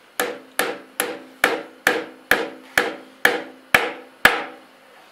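Ten hammer blows, about two a second, driving the upper steel bearing race into a motorcycle's steering-head neck, each blow ringing after the strike.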